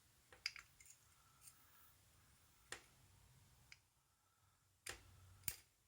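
Faint, scattered clicks and taps of small metal padlock parts being handled and lifted during disassembly. There are several light ticks near the start, a single click midway and a sharper click near the end.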